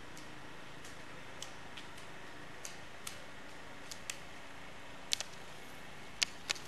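Ski pole tips clicking on asphalt as roller skiers skate toward the microphone: scattered sharp clicks over a steady hiss, the loudest ones near the end.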